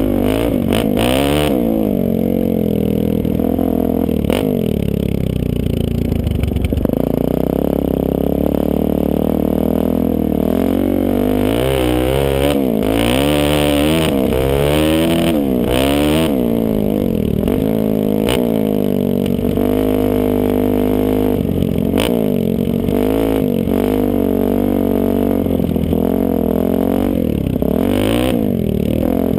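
Suzuki DR-Z400E's single-cylinder four-stroke engine with an aftermarket FMF exhaust, revving up and dropping back again and again as the bike is ridden through the gears. Wind rushes over the microphone in short gusts.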